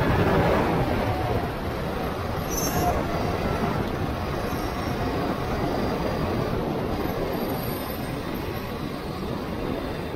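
Onboard sound of a Traxxas Stampede 4x4 RC truck driving on pavement: the tires, drivetrain and chassis make a steady rumble and rattle, a little louder at the start and easing off slightly.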